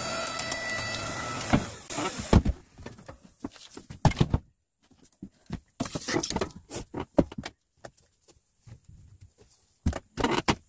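A steady mechanical hum stops about two seconds in. Then come irregular wooden knocks and clatters of split firewood pieces being tossed and landing on other wood, some single and some in quick clusters.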